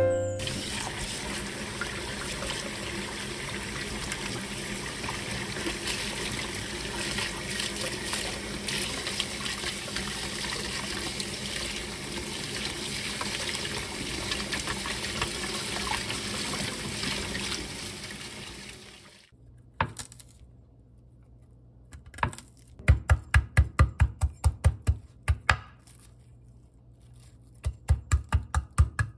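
Tap water running into a stainless steel sink while wild chives are rinsed by hand; the water stops about two-thirds of the way through. Near the end, two quick runs of knife strikes on a wooden cutting board, as the wild chive bulbs are chopped and crushed.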